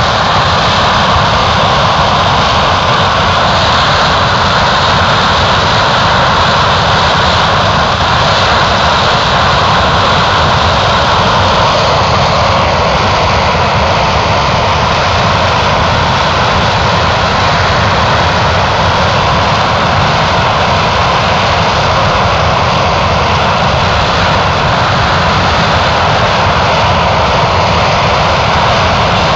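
Aircraft engine running steadily: a loud, constant noise that does not change for the whole stretch.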